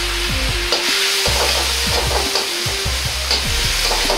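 Cabbage sizzling in a hot wok, with a metal ladle scraping and stirring through it several times from about a second in.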